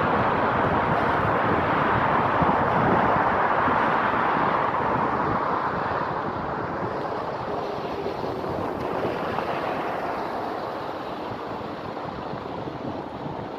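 Wind rushing over a microphone held out on a selfie stick, stirred up by riding an electric unicycle: a steady noisy rush that slowly eases after the first few seconds.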